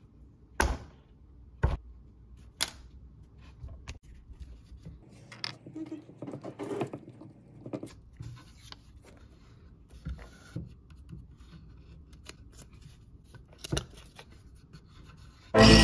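Glue stick rubbing and scraping over a paper template on a basswood board, with several sharp taps and clicks from handling: three about a second apart near the start and a few more later.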